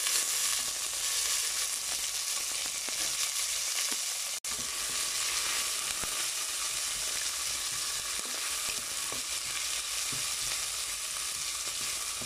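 Sliced onions sizzling in hot oil with whole spices in an aluminium pot, stirred with a wooden spatula: a steady frying hiss that cuts out for an instant a little over four seconds in.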